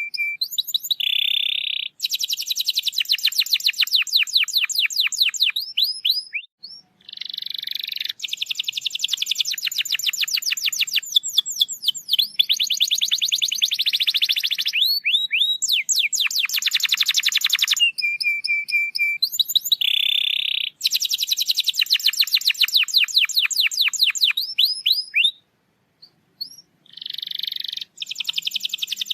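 Domestic canary singing long rolls of fast repeated high chirps and trills, with a few short held whistles. The song breaks off briefly twice.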